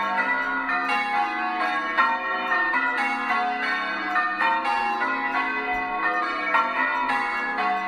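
Church bells being rung in changes: a steady, even run of bell strikes in quick succession, each note ringing on into the next.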